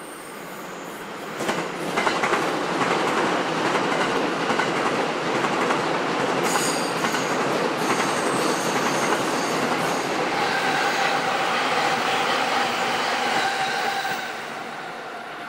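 JR East E257-5500 series electric limited express passing close by, wheels clattering over the rails with high-pitched squealing from the wheels on the curve. The sound swells sharply about a second and a half in and falls away near the end.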